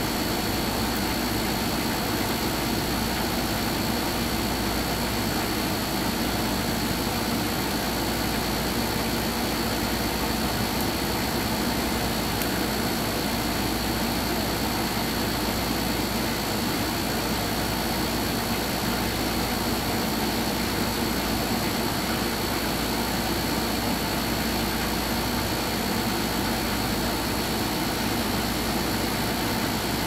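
A steady, unchanging machine-like hum and hiss with a thin high whine running through it, like a motor or engine idling.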